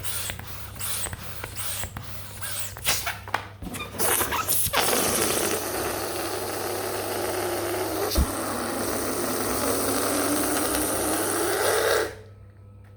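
Mini latex balloons and their plastic packaging being handled: crinkly rustling and clicking, then a steady dense rush of many small pieces moving together that stops suddenly about a second before the end, with one sharp knock partway through.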